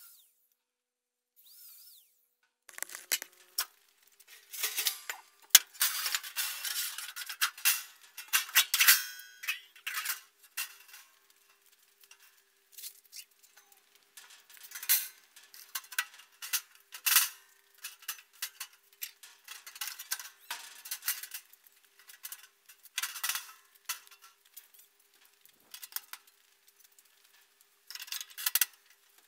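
Thin 2 mm mild steel sheets being handled and laid onto a steel frame: repeated metallic clanks, clatters and scrapes, starting about three seconds in, densest and loudest over the next several seconds, then in sparser irregular groups.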